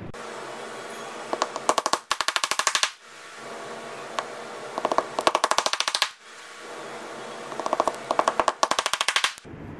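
Steel claw hammer tapping a round fitting down into a drilled plywood block, in three quick runs of rapid, light, sharp taps with short pauses between.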